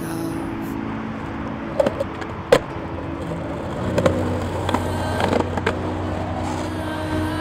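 Skateboard wheels rolling on pavement, with several sharp clacks and knocks of the board; the loudest comes about two and a half seconds in.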